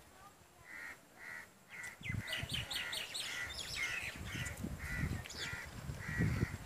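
Birds calling: one harsh call repeated about twice a second, with quicker, higher chirping over it in the middle. A low rumbling noise joins about two seconds in and grows loudest near the end.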